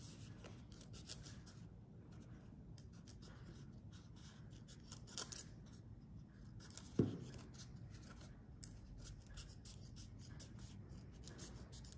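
Scissors snipping through a sheet of craft foam: a run of faint, crisp snips, with a single thump about seven seconds in.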